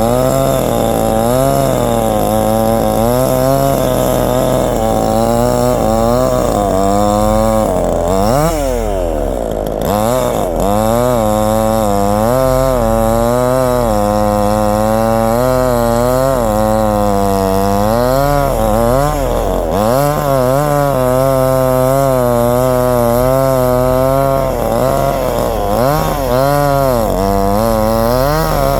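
Chainsaw cutting into a tree trunk, its engine pitch wavering constantly as the chain bogs under load and recovers. About a third of the way in, and twice more near the end, the revs drop sharply and then climb back.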